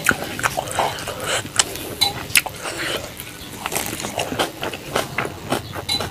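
Close-up eating sounds: wet chewing and lip smacking, and fingers squishing rice and fish curry, as a continuous run of irregular sharp clicks and squelches.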